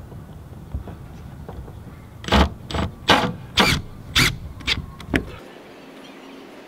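Cordless drill driving screws into an RV roof fan's mounting flange, run in a string of short bursts between about two and five seconds in.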